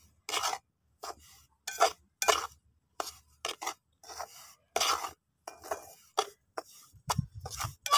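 Slotted metal spatula scraping and stirring semolina in an aluminium pan as it roasts for halwa: short scrapes about twice a second, unevenly spaced.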